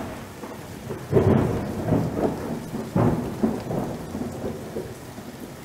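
Thunderstorm: steady rain with rolling thunder, two loud rumbling peals about a second in and about three seconds in, each dying away.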